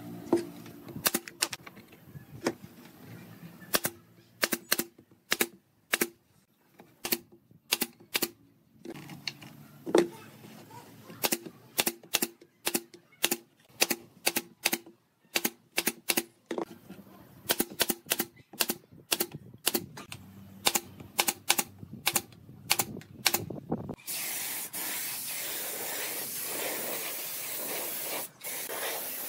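Pneumatic nail gun firing into wood, many sharp shots in quick irregular succession, some in pairs. About 24 seconds in, a paint spray gun takes over with a steady hiss as finish is sprayed onto the wood.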